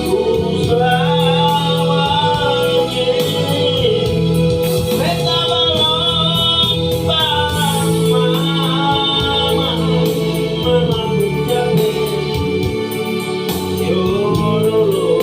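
Music with a sung melody over a sustained keyboard or organ accompaniment, in the style of a gospel song.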